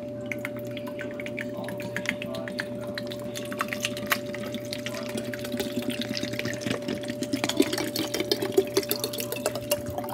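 Pre-workout powder being mixed into a bottle of cold water: water sloshing and dripping, with a run of small clicks and taps that grows busier toward the end.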